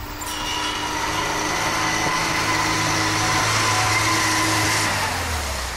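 Steyr-Puch Pinzgauer military off-road truck driving past, its engine and tyres growing louder, then fading after about five seconds.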